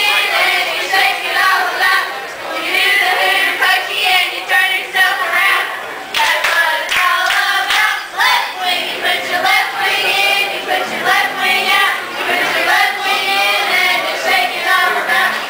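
A group of waitresses singing a birthday song together, several voices at once, with hand clapping.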